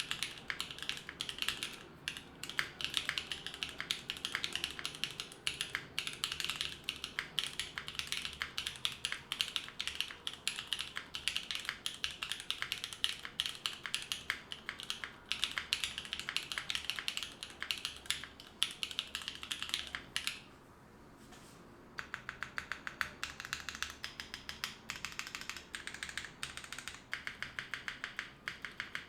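Typing on a Neo65 mechanical keyboard with lubed Gateron Cream Soda linear switches, GMK Serika keycaps, an FR4 plate and no foam: a steady stream of keystroke clacks. About two-thirds of the way through it pauses for a second and a half, then goes on as quicker, evenly spaced key taps.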